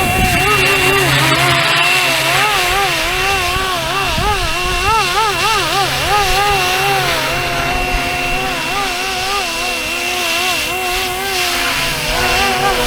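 RC scale helicopter's motor and rotors whining steadily in flight, the pitch wavering up and down constantly as it holds against gusty wind, with wind buffeting the microphone.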